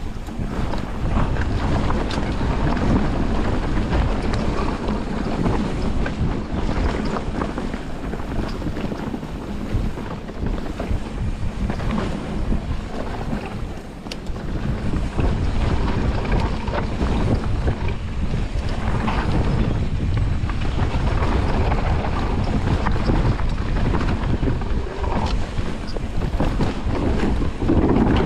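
Mountain bike riding fast down a dirt trail: wind buffeting the camera microphone over the tyres rolling on dirt, with frequent knocks and rattles from the bike over bumps.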